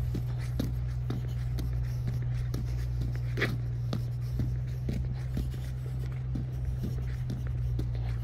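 Footsteps scuffing on stone paving at a walking pace, about two steps a second, over a steady low hum.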